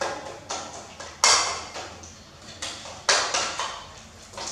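A spoon beating egg in a ceramic bowl, clinking against the bowl in quick, irregular taps, with two louder ringing clinks.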